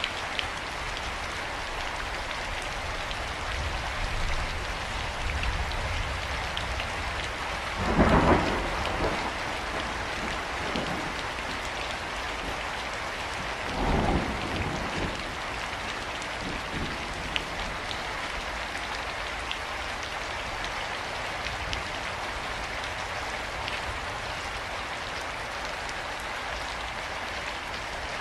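Steady heavy rain with thunder: two rolls of thunder rumble through, the first and louder about eight seconds in, the second about fourteen seconds in, each dying away over a couple of seconds.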